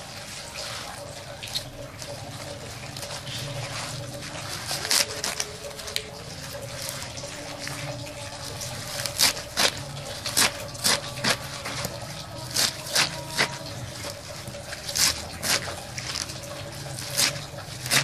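A kitchen knife chopping through a pile of crisp leafy greens on a metal tray, with sharp, irregular cuts about one to two a second through the second half. Before that the leaves rustle as they are gathered by hand.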